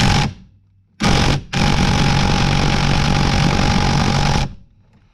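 Half-inch impact wrench hammering on a steering wheel nut: a brief burst at the start, a short one about a second in, then a long steady run of about three seconds. The nut is seized and does not break loose.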